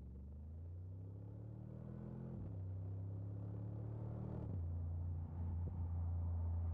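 Mercedes-AMG G 63's twin-turbo V8 accelerating through the gears. The engine pitch climbs and drops at two upshifts, about two and a half and four and a half seconds in, then holds low and steady while the sound grows louder.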